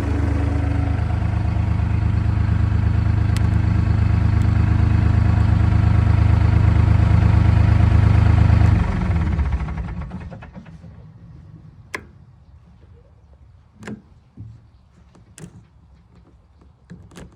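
John Deere 250 skid steer's diesel engine running steadily, then shut off about nine seconds in and dying away. A few sharp clicks and knocks follow.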